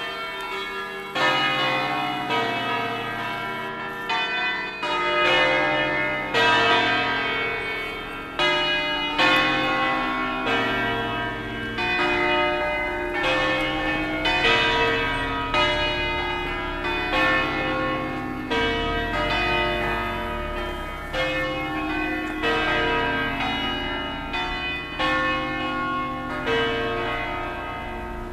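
Peal of eight church bells tuned in B-flat, cast by Pruneri in 1909 and by Ottolina in 1948, rung electric-manually. Strikes follow one another about once a second, each ringing on under the next.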